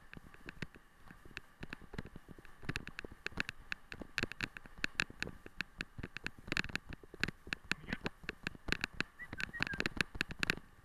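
Rapid, irregular clicking and knocking of a wheeled dog-sled training rig and its camera mount jolting over a rough trail behind a running husky team, over a faint steady hum.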